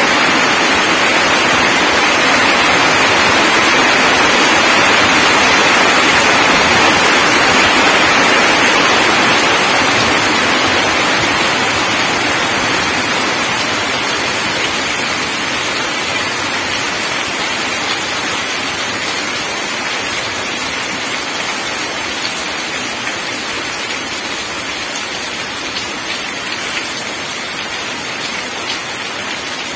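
Heavy rain pouring down and splashing on wet ground and puddles: a steady, dense hiss that eases gradually a little after the first ten seconds or so.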